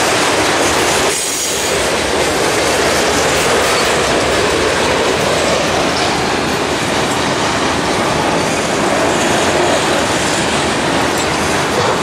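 Autorack freight cars rolling past close by, their steel wheels running on the rails in a steady loud noise, with a short dip about a second in.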